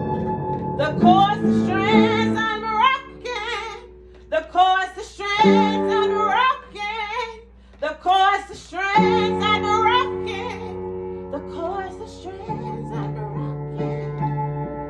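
Music: a woman vocalising a wavering melody without clear words over held chords. The voice stops after about ten seconds and the chords carry on.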